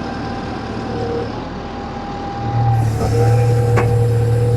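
John Deere 6120E tractor running while its hydraulics work the round baler's bale ejection. About two and a half seconds in, a louder, steady low hum sets in and holds, with a single click a second later.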